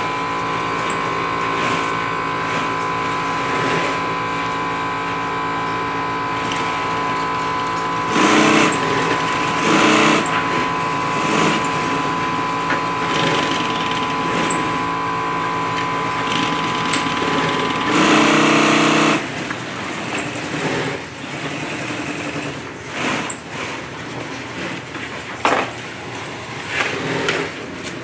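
Industrial sewing machine stitching nylon webbing onto fabric in short runs of about a second each, the loudest about eight, ten and eighteen seconds in, with smaller runs near the end. A steady hum runs underneath and stops just after the longest run.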